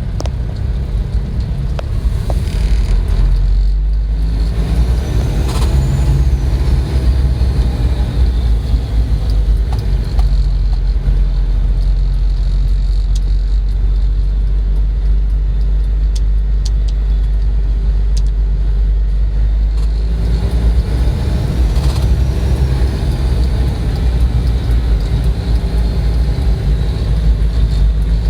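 Isuzu Trooper's 3.1-litre 4JG2 four-cylinder turbodiesel running, revved up twice, with the turbocharger's high whistle rising and falling with each rev: about five seconds in and again about twenty seconds in.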